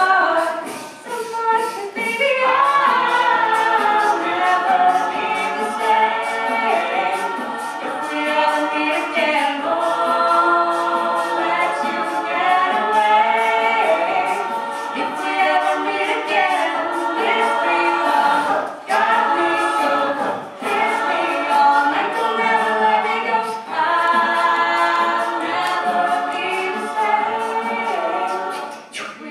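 Mixed-voice a cappella group singing a pop song live: layered vocal harmonies from the whole ensemble, with a lead voice through a microphone on top.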